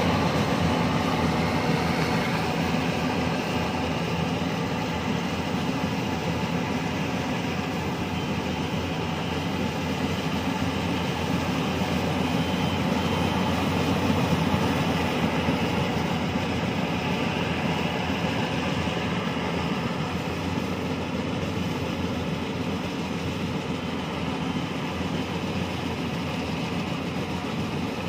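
Tracked rice combine harvester running steadily under load as it cuts and threshes rice: the engine's drone mixed with the machinery's whirring noise, easing off slightly toward the end.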